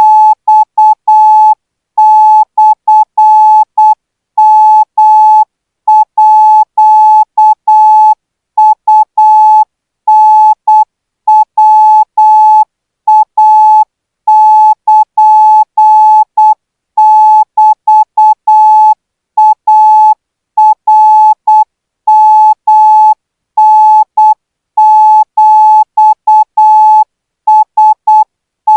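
Morse code practice tone sent at 12 words per minute for Thai radio signal training: a single steady beep keyed on and off in short dots and longer dashes, grouped into characters by brief gaps.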